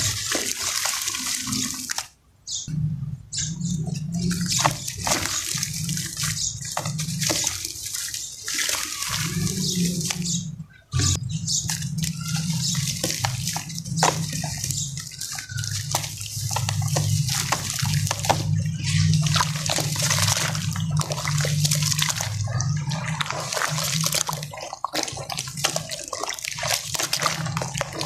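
Dry sand-and-cement lumps crumbled by hand over a plastic tub of water: a dense gritty crackle of grains and crumbs pattering and splashing into the water. Near the end the hands stir the thick muddy water, and it sloshes. The sound cuts out briefly twice.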